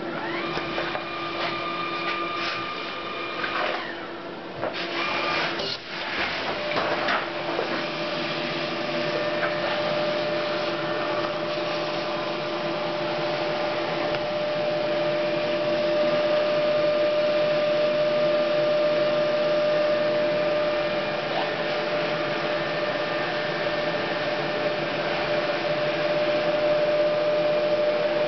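Memjet SpeedStar3000 inkjet label printer starting a job and then printing a continuous run of labels. A few clicks and a change in its hum come about four to seven seconds in; after that it runs steadily, a constant whine over even machine noise.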